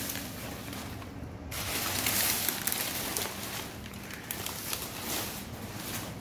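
Crumpled brown packing paper crinkling and crackling as a cat moves about inside it. There is a short lull about a second in.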